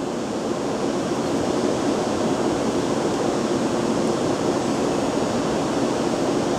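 Steady mechanical drone with a faint low hum running through it, even in level throughout.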